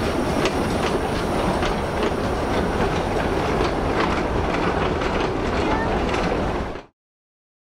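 A train of wooden goods wagons rolling past on a 600 mm narrow-gauge line, with a steady rumble and the wheels clicking over the rail joints. The sound cuts off abruptly near the end.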